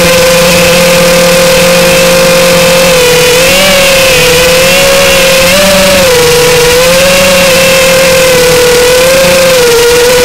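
Furibee X215 Pro quadcopter's motors and propellers whining loudly, heard close up from on board. The pitch holds steady, then wavers up and down several times in the second half.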